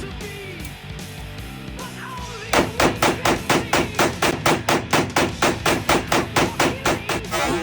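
Background music, then from about two and a half seconds in a fast, very even run of sharp hits, about four a second, that runs almost to the end.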